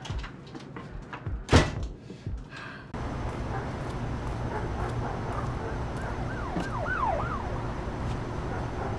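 A few soft knocks and one sharp, loud click about a second and a half in. Then a steady low rumble of outdoor night ambience, with a distant siren wailing up and down several times about halfway through.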